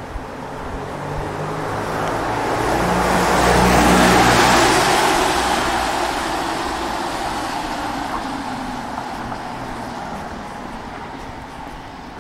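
A car passing close by on a wet street, its tyres hissing on the wet road over a low engine note. The sound builds to a peak about four seconds in and fades slowly as the car drives away.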